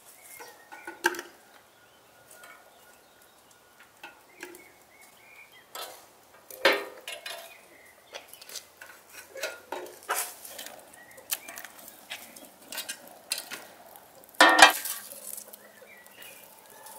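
Metal tongs clinking and scraping against a steel brazier among burning wood and embers: scattered clicks and knocks, the loudest about seven and fifteen seconds in.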